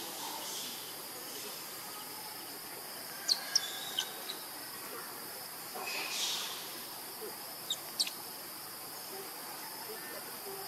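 Steady high-pitched drone of insects, with a few short, sharp high chirps about a third of the way in and again about eight seconds in, and a brief rustling burst around six seconds in.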